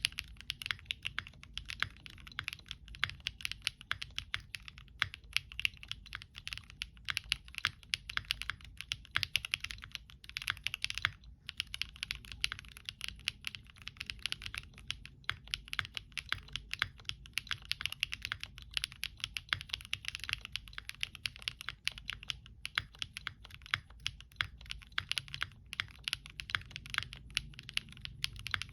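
Fast typing on a Monsgeek M1 mechanical keyboard with lubed and filmed Gateron Modern Grey switches and foam in the case and under the PCB: a dense, continuous run of keystroke clacks, with a brief pause about eleven seconds in.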